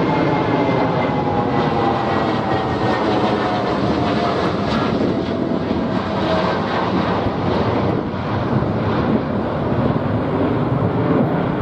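Jet noise from a Boeing 787-9 Dreamliner's two GEnx-1B turbofans at climb power as it passes overhead after takeoff. It is a loud, steady roar of engine noise with a thin whine that slowly falls in pitch as the plane moves away.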